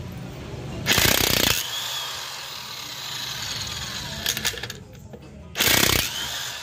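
DCA APB20C corded electric impact wrench hammering on a car wheel's lug nuts to loosen them, in two short bursts: about a second in and near the end. Each burst is followed by a brief falling whine.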